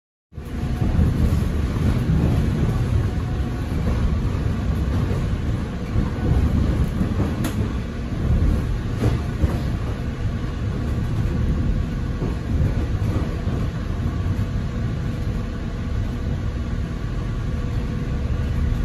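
Interior of a Metra Electric Highliner electric multiple-unit car under way: a steady low rumble with a faint steady hum, and two sharp clicks partway through.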